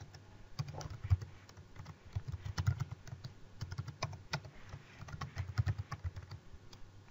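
Typing on a computer keyboard: a fast, irregular run of key clicks with short pauses between bursts.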